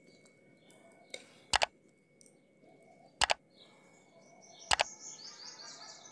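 Three crisp double mouse clicks, about a second and a half apart: the sound effect of a like-subscribe-bell button animation. Birds chirp faintly behind, more near the end.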